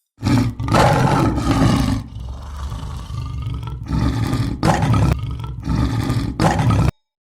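An animal roaring: a run of deep, rough roars, the longest in the first two seconds, then several shorter ones about a second apart, cut off abruptly near the end.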